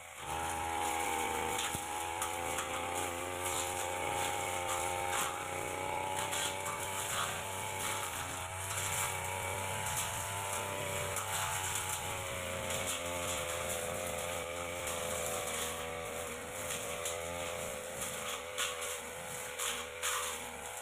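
Backpack brush cutter's small petrol engine running at high revs. Its pitch rises and falls as the throttle is worked while the tanika blade cuts through grass and undergrowth.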